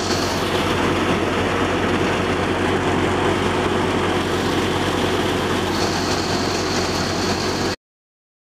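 Tractor-driven chickpea thresher running steadily: a continuous heavy mechanical rattle over a low drone. It cuts out abruptly for under a second near the end.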